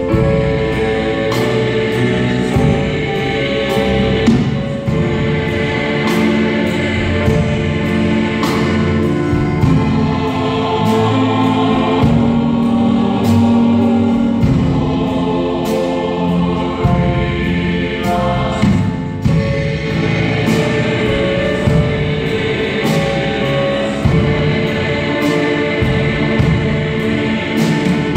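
A large mixed choir singing a gospel-style hymn in full voice, with accompaniment and a steady beat of percussive hits.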